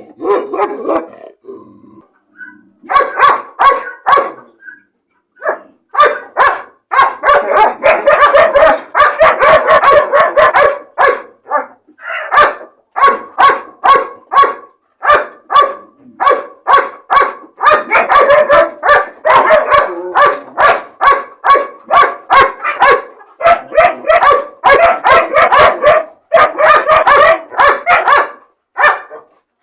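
Dog barking repeatedly in quick runs of sharp barks, with short pauses a few seconds in.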